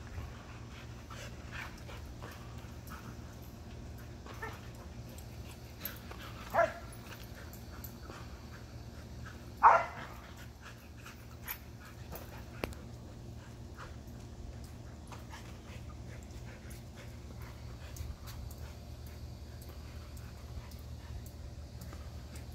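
An Australian Shepherd gives a few short whines or yips, the loudest about ten seconds in and falling in pitch, over a steady low background hum.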